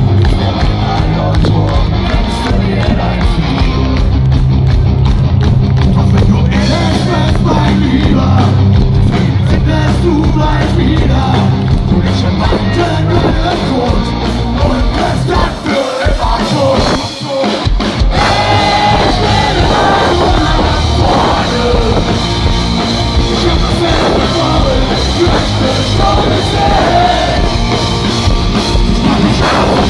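A rock band playing live through a PA: electric guitar, bass and drums with a lead singer. About halfway through, the bass and drums drop out for a couple of seconds, then the full band comes back in.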